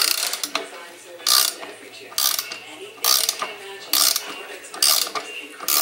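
Ratcheting wrench clicking in short bursts, about once a second, as it turns the forcing screw of a Pitman arm puller that is pressing a bushing out of a trailing arm.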